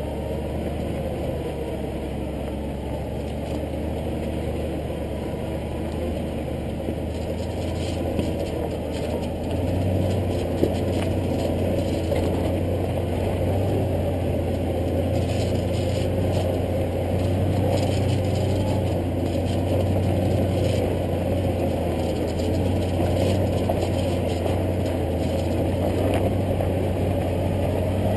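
2009 Hummer H3T Alpha's V8 engine running steadily at low revs as the truck crawls over a rocky dirt trail, with scattered clicks and rattles. The engine drone grows a little louder about ten seconds in.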